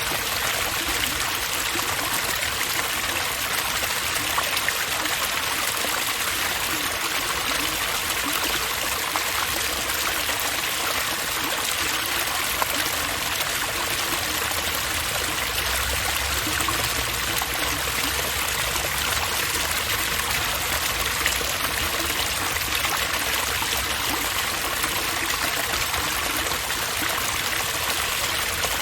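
Water running steadily in an outdoor water feature, a constant splashing rush.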